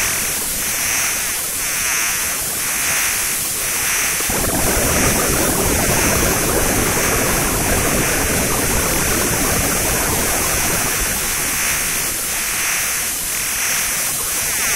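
Electronic static: a loud, even hiss with a soft pulsing about twice a second. A deeper rushing layer comes in about four seconds in and thins out again past the middle.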